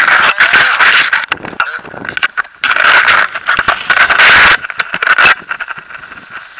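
Rushing airflow of paragliding flight hitting the camera microphone in loud, irregular gusts that ease off about five seconds in.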